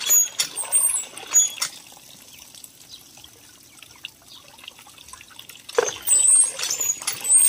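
Water from a hand-worked cast-iron water pump gushing and splashing into a metal pot, with knocks and clinks. It comes loudly in the first two seconds and again from about six seconds in, with a quieter trickle between.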